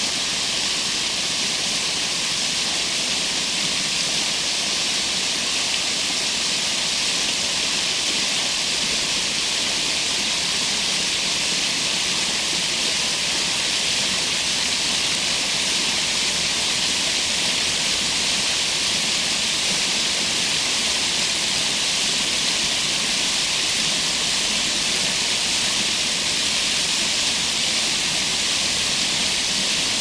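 Water spilling steadily over the low concrete ledges of a stepped artificial cascade, a constant even rush of falling water.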